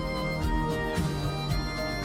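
Background music with a melodic instrument line over a steady beat.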